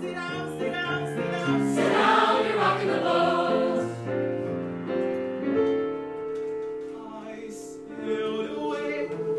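Large mixed choir of men's and women's voices singing in harmony. It is loudest about two seconds in, then holds a long chord for a couple of seconds before moving on near the end.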